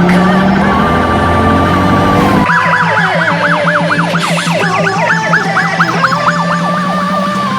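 Emergency vehicle sirens. For the first two and a half seconds steady siren tones sound over a low engine rumble. Then the sound changes abruptly to a rapid electronic yelp, several sweeps a second, and near the end it settles back into steadier siren tones.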